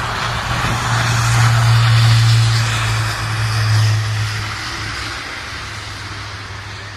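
Large aircraft engines passing: a steady low hum under a rushing roar that swells about two seconds in, then fades away toward the end.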